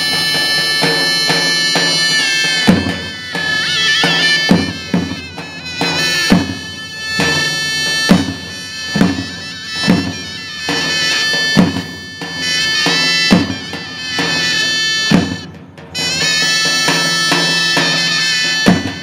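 Two zurnas playing a zeybek melody over two davuls beating a slow, heavy, even beat. The zurnas break off for a moment about three-quarters of the way through while the drums carry on.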